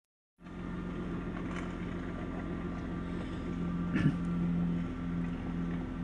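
2004 Chrysler Sebring's 2.7-litre V6 idling steadily, heard from inside the cabin, with one brief click about four seconds in. The engine is cold and the idle is not surging at the moment; the car's intermittent idle surge shows up once the engine is warm.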